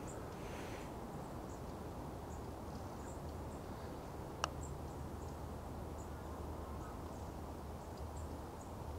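Faint outdoor riverside ambience: a steady low rumble with scattered short, high chirps from small birds or insects, and one sharp click about four and a half seconds in.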